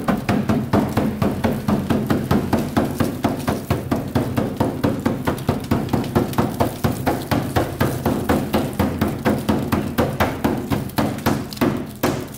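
Background music with a quick, steady percussive beat, about four to five hits a second, over sustained low bass notes.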